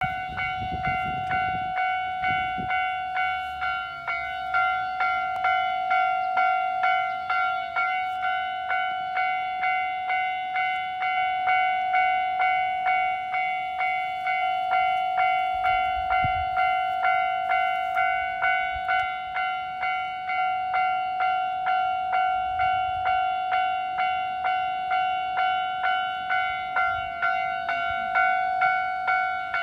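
Japanese level-crossing warning bell ringing in a steady, even rhythm, about two strikes a second. It is the warning that a train is approaching and the crossing is closed.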